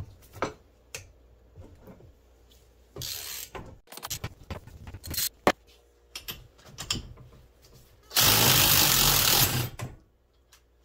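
Cordless power driver spinning the forcing screw of a wheel puller to draw a bogie wheel off a snowmobile suspension skid. It runs in two bursts, a short one about three seconds in and a loud one of about a second and a half near the end, with scattered clicks and clanks of tools and metal parts between them.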